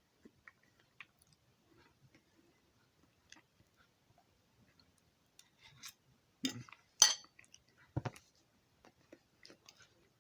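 Small kitchen handling sounds: faint scattered clicks and taps, then three louder knocks and clinks of utensils and dishes between about six and eight seconds in.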